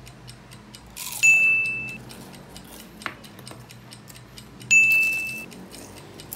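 Two short edited sound effects, each a bright burst with a held ringing tone, about a second in and again near five seconds, marking the on-screen count of eaten spring rolls going up. Faint rapid clicks in between.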